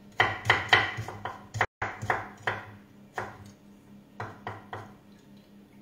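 Kitchen knife slicing an artichoke thinly on a wooden cutting board: a quick run of knocks of the blade on the board for the first two and a half seconds, then a few more spaced cuts.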